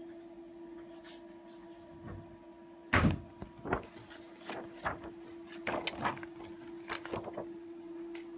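Steady hum of a binderhaus R50/14-DUO creasing and slot-punching machine running. About three seconds in comes a loud knock, then a run of lighter, irregular clacks.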